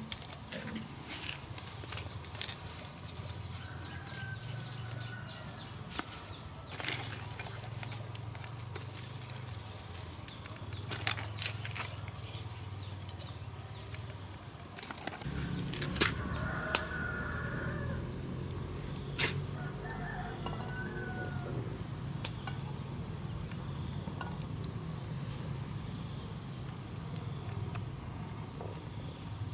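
Dry bamboo sticks and grass being handled and snapped while a small cooking fire is built, heard as scattered sharp snaps. Under them runs a steady high insect chirr, with a few short bird calls.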